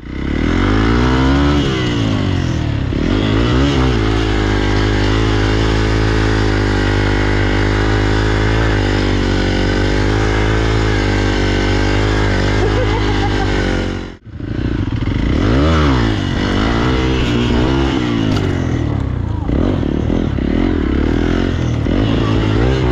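Hero XPulse motorcycle's single-cylinder engine being ridden hard, revving up and down, then held at high revs for about ten seconds. The sound cuts out abruptly for a moment about 14 seconds in, then the revs rise and fall again.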